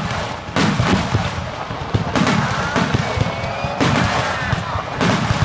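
Star mine fireworks barrage: a rapid string of shell bursts and booms, several a second, with whistling shells gliding upward in pitch between them.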